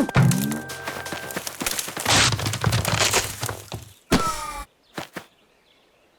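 Cartoon slapstick sound effects: a quick run of thuds, knocks and clattering with two loud rushing bursts, then a sharp crash with a falling tone. Two short thumps follow, and then it goes quiet.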